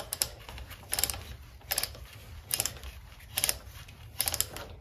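King Dick socket ratchet clicking in about six short bursts, one every second or so, as it is worked back and forth to undo cylinder-head bolts.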